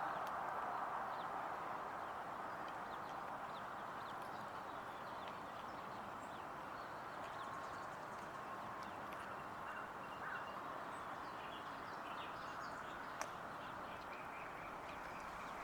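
Faint songbird chirps and short calls scattered over a steady background hiss that eases slightly in the first few seconds, with one brief click near the end.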